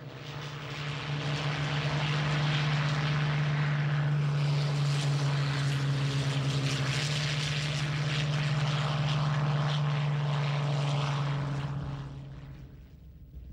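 Propeller-driven piston-engine fighter's engine running with a steady drone. It fades in over the first couple of seconds and fades out about a second before the end.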